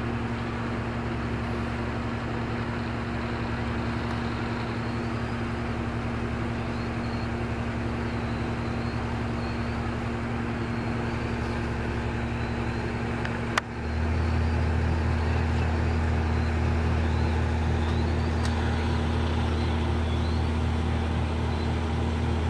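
Steady engine drone running without a break. About two-thirds of the way through, a sharp click is followed by the low hum becoming noticeably louder.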